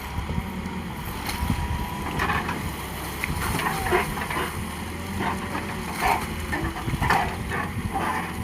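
A JCB earthmover's diesel engine runs steadily, with short irregular clanks and creaks from the working machine.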